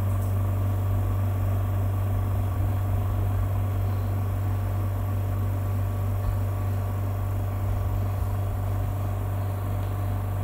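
Yuwell 7A-23D electric suction apparatus running with its pressure regulator at full, its pump giving a steady, even hum while it holds a vacuum on the gauge.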